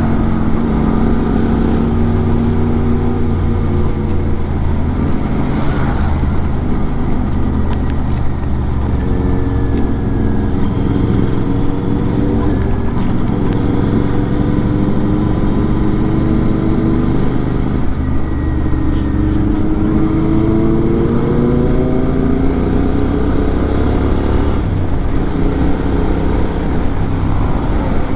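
Kawasaki Z900 superbike's inline-four engine with an SC-Project aftermarket exhaust, running under way. The engine note holds steady for long stretches, then climbs in rising sweeps as it accelerates in the later part.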